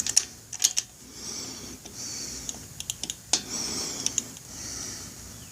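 Scattered metallic clicks and clacks of hand tools: a torque wrench being fitted with its extension and 3/8 adapter and set on the tappet screen plug. The clicks are irregular, a few close together near the start and a handful more around the middle.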